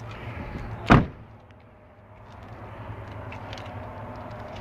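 Rear door of a 2016 Chevrolet Silverado 1500 crew cab shutting once, a single solid thud about a second in, followed by low steady background noise.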